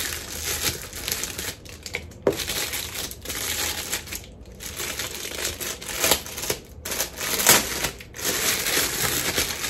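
Clear plastic bag crinkling and rustling as it is handled and pulled open, with a few sharper, louder crackles along the way.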